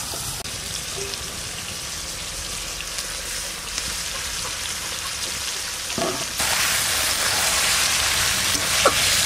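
Marinated duck meat and onions sizzling in hot oil in an aluminium kadai, a steady frying hiss. It gets louder about two-thirds of the way through as the meat is turned with a metal spatula.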